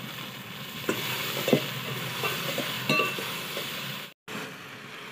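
Steel spoon stirring chopped okra, onion and green chillies in an aluminium pot, with a few sharp clinks of the spoon against the metal, over a steady frying hiss from the pot on the wood fire. The sound drops out for a moment about four seconds in.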